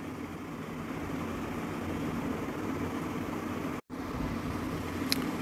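Steady low hum and hiss of background room noise, broken by a split-second dropout to silence just under four seconds in, with a faint click about a second later.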